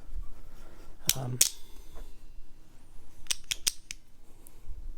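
Sharp metal clicks from a set of Bahco adjustable pliers being handled: two clicks about a second in, then four quick clicks around three and a half seconds in.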